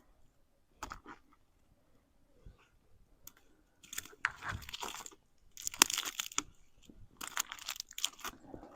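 Dry sticks and kindling crunching and snapping as they are broken and handled, in several irregular bursts, the loudest about six seconds in.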